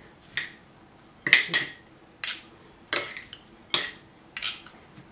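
Metal fork and spoon tossing a dressed salad in a ceramic bowl: about seven short clinks and scrapes of metal on the bowl, one every second or less.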